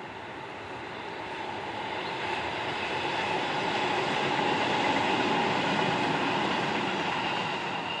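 A vehicle passing by off-screen: a steady rumble that swells to its loudest about five seconds in and then fades.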